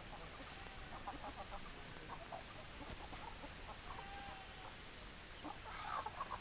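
Domestic chickens clucking in short repeated notes, with a couple of longer drawn-out calls, and a louder flurry of clucks near the end.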